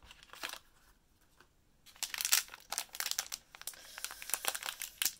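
Packaging of a blind-box mystery pin being torn open by hand, crinkling and crackling. After a quiet first two seconds, a quick run of sharp crackles begins.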